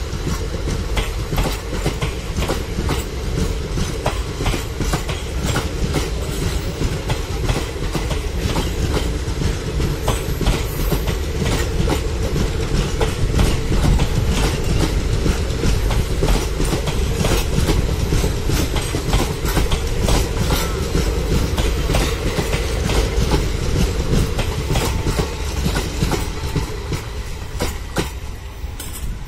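A long rake of Utkrisht passenger coaches rolls past at speed, their wheels clattering rhythmically over rail joints above a steady heavy rumble. The sound begins to fade near the end as the last coach goes by.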